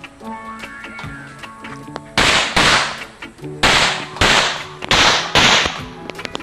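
Six pistol shots fired as three quick pairs about a second and a half apart, each shot ringing briefly.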